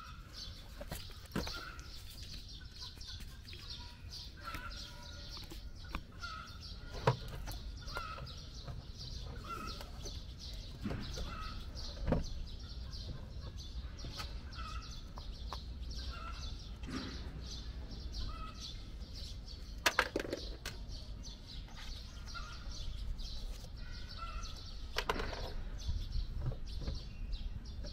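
A bird chirping over and over, one short call about every second. A few sharp knocks and clicks cut in now and then as a strap is fastened around a fresh-water tank.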